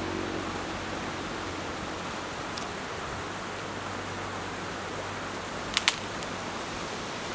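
Steady rushing of wind through poplar leaves, with two sharp clicks close together about six seconds in.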